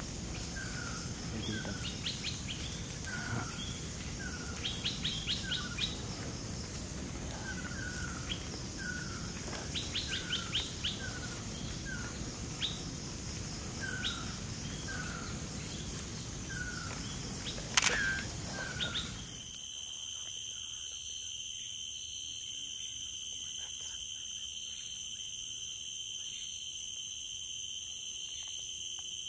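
Forest birds calling: a short falling whistle repeated roughly once a second, with bursts of quick high ticking notes, and one sharp click just before 18 s. A little after that the sound changes abruptly to a steady high drone of several held tones.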